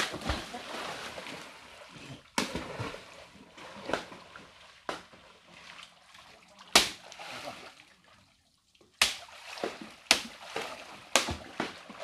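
Water sloshing around people wading chest-deep, broken by sharp splashes on the surface about every second; it drops away briefly about two-thirds through.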